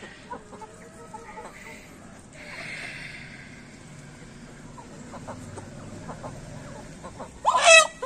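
Free-range chickens clucking softly, with one loud, short squawk near the end.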